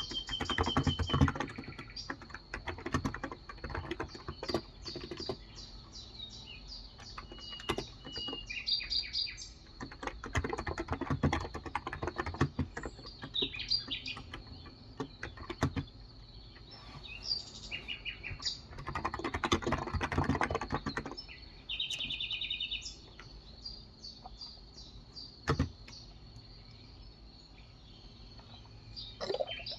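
Typing on a Cox Endeavor tenkeyless keyboard with 35 g capacitive (non-contact) switches, in several bursts of rapid keystrokes with pauses between. Birds chirp in the background.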